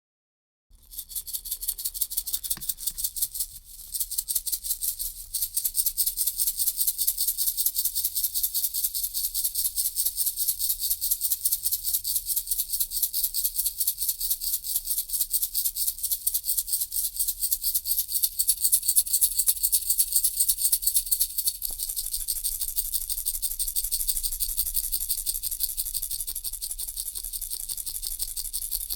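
Baby rattle shaken rapidly and steadily, a bright, high, dense rattling that starts just under a second in and falters briefly near four seconds.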